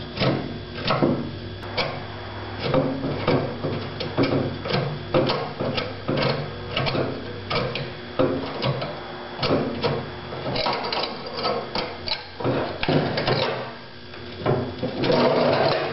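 Irregular knocking and clattering, about two or three knocks a second, of machine parts being handled during filter maintenance on a skate sharpening machine, over a faint steady hum. The clatter grows louder and denser near the end.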